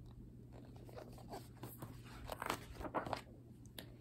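Paper rustling and light taps as the pages of a picture book are turned and the book is handled, the loudest rustles in the second half, over a faint steady low hum.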